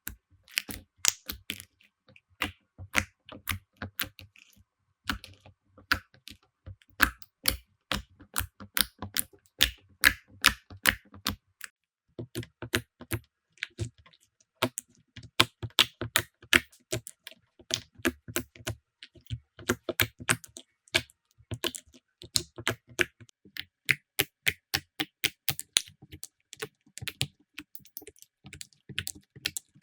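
Slime being squeezed and pressed by hand, giving a dense, irregular run of sharp clicks and small pops, with a soft squish underneath in places.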